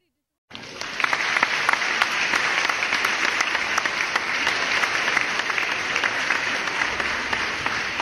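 Audience applauding: a dense stretch of clapping that starts suddenly about half a second in, right after the dance music cuts off, holds steady, and begins to fade near the end.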